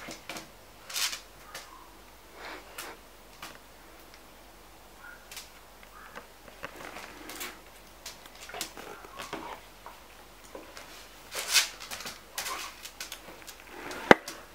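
A mixed-breed dog moving about on a hard stone floor and nosing at the ground: scattered short scuffs, sniffs and clicks, with one sharp click near the end.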